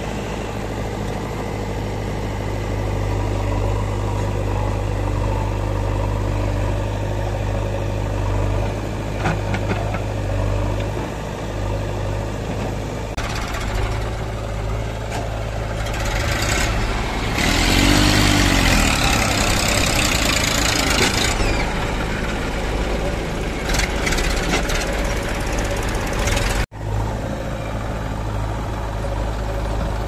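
Diesel engines of a JCB 3DX backhoe loader and a Massey Ferguson tractor running with a steady low hum as the backhoe loads soil. Past the middle there is a louder rushing stretch of several seconds, with an engine note that rises and falls. Near the end the sound cuts out for an instant.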